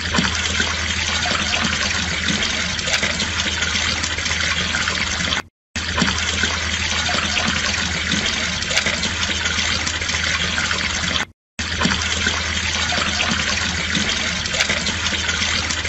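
Water pouring over the lip of a small garden fountain and splashing down steadily, cutting out briefly twice, about five and eleven seconds in.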